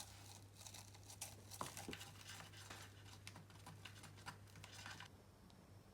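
Near silence: faint scattered small clicks and rustles over a low steady hum, dying away about five seconds in.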